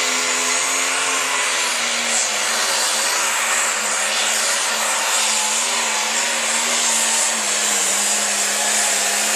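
Light pro stock pulling tractor's turbocharged diesel engine running flat out under load down the track: a loud, steady drone whose pitch wavers slightly and dips a little near the end.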